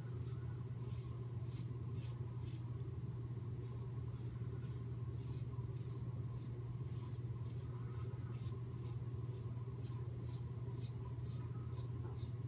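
Short scraping strokes of a Merkur 37 slant-head safety razor with an Astra blade cutting stubble on the neck and chin during touch-up passes, a few quick strokes a second in uneven runs, over a steady low hum.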